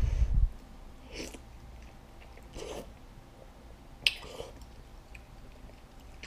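A person eating hot broth noodles: a short puff of breath blowing on a forkful to cool it, then quiet chewing and a sip from a spoon, with a few short mouth sounds.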